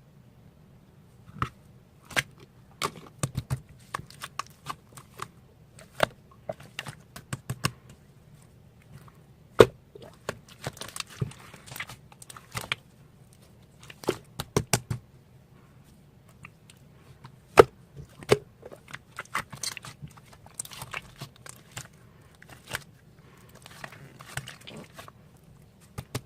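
Slime being squished and poked by hand, giving irregular sharp clicks and pops with a few short squelching stretches, over a faint low hum.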